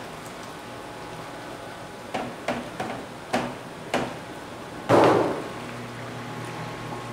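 A plastic basin knocked against the rim of a stainless steel mixing kettle to shake out the last of the rice slurry. There are five quick knocks over about two seconds, then one louder bang, over a steady hum from the kettle's stirring machine.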